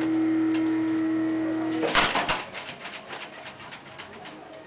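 A steady machine-like hum that cuts off with a loud clunk about two seconds in, followed by a run of light clicks.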